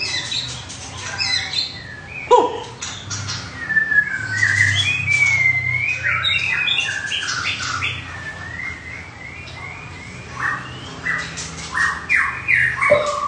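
Caged songbirds singing a busy run of varied whistled phrases and short chirps, rising and falling in pitch, with one lower falling call about two seconds in and a string of short repeated notes near the end.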